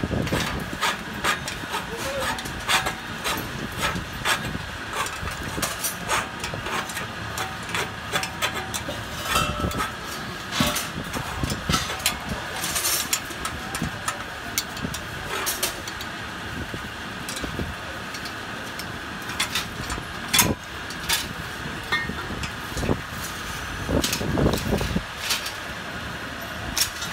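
Irregular metallic clicks and clinks of a spanner turning and knocking on nuts and bolts of a steel frame, over a steady mechanical hum.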